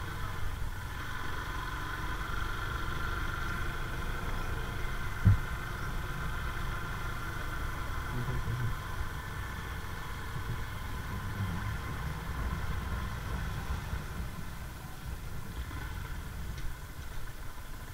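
Vehicle engine running steadily at low speed with a low rumble, and a single sharp thump about five seconds in.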